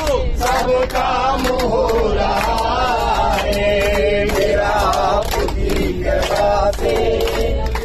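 A group of men and women singing a Hindu devotional song (bhajan) together in unison, with held, wavering sung notes, while they clap their hands in time.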